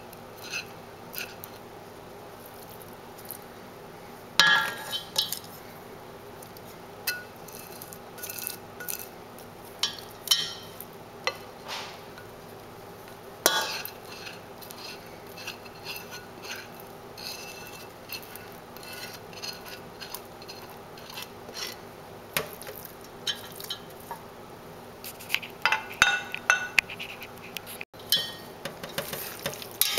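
Wooden chopsticks and a wooden spatula scraping a nonstick frying pan and knocking against a stainless steel pot, in scattered clicks and scrapes as sticky caramel sauce is scraped into the pot. Near the end a quicker run of clinks as chopsticks stir the pot, over a steady low hum.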